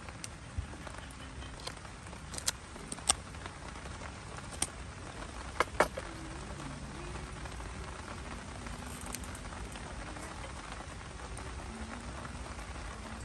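Small wood fire crackling steadily, with a few sharp cracks between about two and six seconds in.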